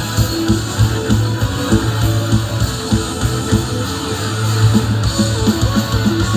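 Rock band playing live: strummed electric guitar over bass guitar and drums with a steady beat.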